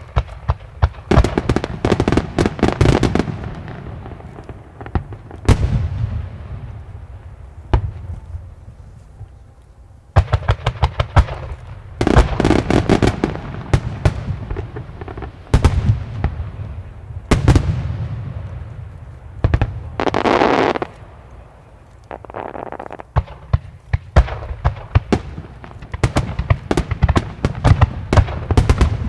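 Aerial firework shells bursting in rapid volleys of sharp bangs, with crackling and trailing echoes. The waves of bursts ease off and build again, thickest near the end, as in an opening barrage fired from several launch sites at once.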